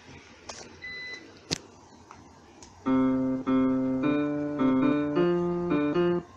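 A few faint clicks and a brief electronic beep. About three seconds in, an electronic keyboard starts playing a tune, a melody of held notes over a lower bass line, which cuts off shortly before the end.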